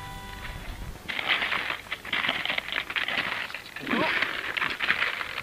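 Touring skis sliding uphill over crusty snow: an irregular crunching and scraping that starts about a second in, as background music fades out.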